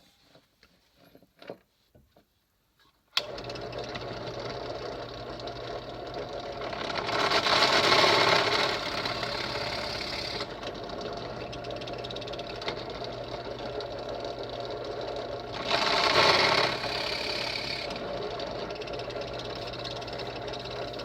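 Drill press switched on about three seconds in and running steadily, with two louder stretches of a few seconds as the bit bores into the wood.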